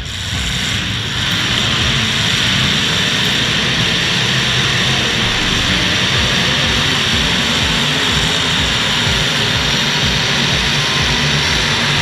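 Several demolition derby cars' engines running hard together, a loud, steady din that swells over the first second or two and then holds.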